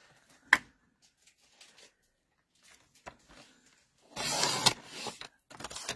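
A paper trimmer's blade carriage is drawn down its rail, slicing through cardstock with a short scraping rasp about four seconds in. A single sharp click comes about half a second in.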